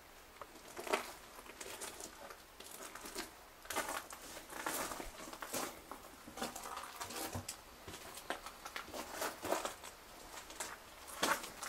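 Footsteps scuffing and crunching on a gritty stone-tunnel floor, an uneven step roughly every second.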